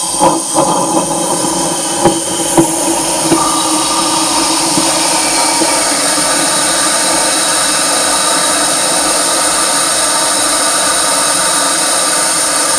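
Compressed air from an air-compressor blowgun blasting through a reverse osmosis system's clogged drain line: a loud, steady hiss. A few sharp knocks in the first three or four seconds are clumps of sediment being blown out and hitting the drain.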